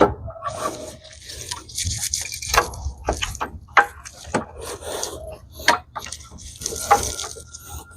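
Replacement alternator being worked into a cramped engine bay: irregular metal knocks and clicks with bouts of scraping as the housing bumps and slides against surrounding parts.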